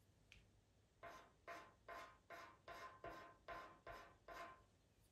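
Pastel pencil scratching across pastel mat paper in about nine quick, faint strokes, roughly two or three a second, laying in fine fur marks.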